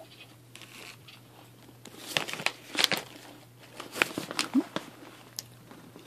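A few short bursts of crisp crunching and crackling, from a small lemon tea biscuit being bitten and chewed and its snack bag being handled.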